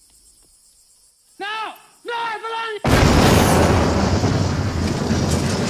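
A man shouts out three short, strained calls, then a car bomb explodes about three seconds in: a sudden, very loud blast that carries on as a heavy rumble to the end.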